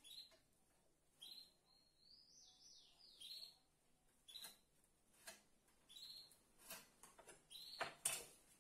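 A small bird chirping over and over: short, high, falling calls about once a second, with a quick warbled run about two seconds in. Near the end come a couple of sharp knocks as a metal square is set down on the wooden workbench.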